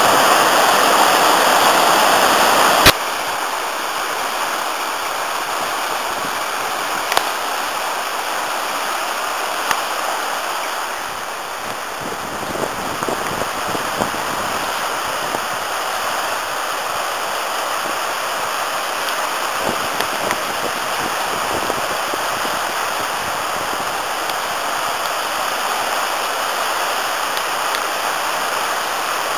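River in spate after heavy rain rushing over rapids, a loud steady rush of white water. About three seconds in it cuts sharply to a quieter, steady rush of water over a rocky stream bed, with a few faint clicks.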